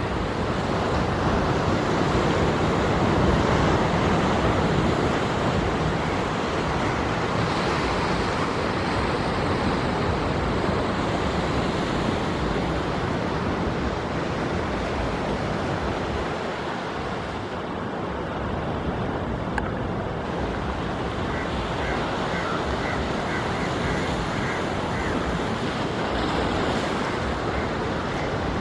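Ocean surf: small waves breaking among rocks and washing up a sandy shore in a steady, continuous wash.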